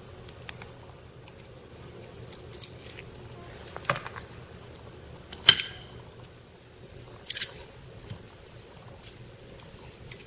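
Scattered metal clicks and knocks as the hex socket bolts of a sewing machine's thread trimmer stepper motor are undone with a hex key and the motor is lifted off its metal bracket. The loudest is a sharp clack with a brief ringing about five and a half seconds in, followed by a smaller cluster of clicks.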